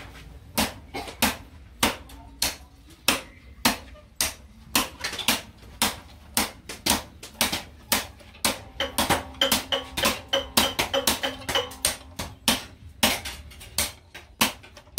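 Hand hammer striking a steel knife blank on a steel post anvil, forging the blade hot from the forge. Regular blows about two a second, quickening to three or four a second in the middle stretch, where the anvil and blade ring with a clear tone.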